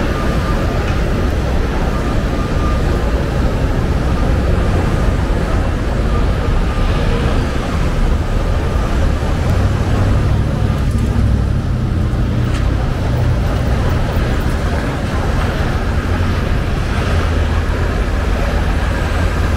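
City street traffic noise, steady, with a heavy low rumble of vehicles passing.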